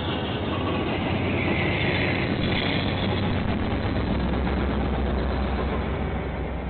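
Diesel locomotive engine of a passing train running close by, a steady deep rumble that grows stronger in the second half.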